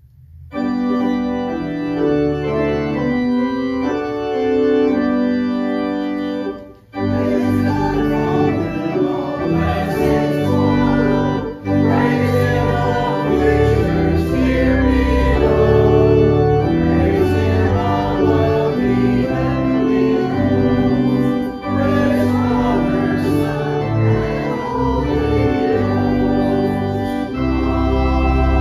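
Church organ playing the postlude that closes the service: sustained chords come in about half a second in, stop briefly near seven seconds, then the music continues fuller and busier.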